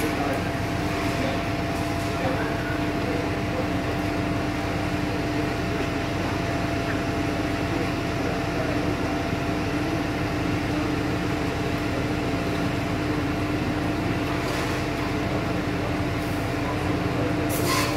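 Fire engine's engine and pump running steadily: a constant drone with a steady hum. A short hiss or clatter sounds near the end.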